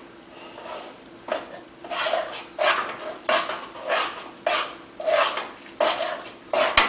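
Spoon scraping around a pan as risotto is stirred during the mantecatura, the final beating-in of butter and Parmigiano. The strokes start a little over a second in and keep a steady rhythm of about three a second. A single sharp knock, the loudest sound, comes near the end.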